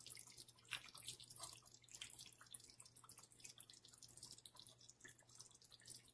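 Faint, irregular little pops and ticks of a pan of brown stew chicken gravy still bubbling just off the heat, over a low steady hum.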